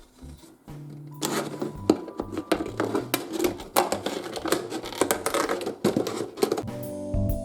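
Thin plastic water bottle crackling and snapping as a feeding hole is cut out of its side: a dense, irregular run of clicks for about five seconds, starting about a second in. Quiet background music at the start and end.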